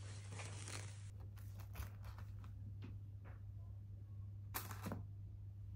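Faint handling sounds of a meal: plastic cling film being pulled off a plate and a fork picking at fries, as scattered small clicks and rustles with a short louder rustle about four and a half seconds in, over a steady low hum.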